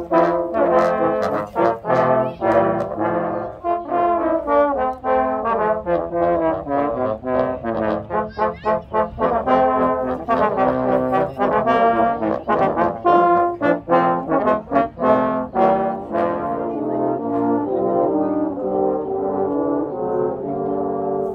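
A trombone choir of about nine trombones playing together in harmony: chords of short, separate notes for most of the time, moving to longer held chords about sixteen seconds in.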